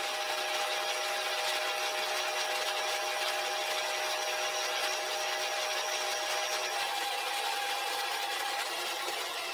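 Archdale vertical milling machine running a milling cutter through a light, slow cut across a cast-iron vise body: a steady whirring cutting noise with a few steady whining tones, one of which drops out about seven seconds in.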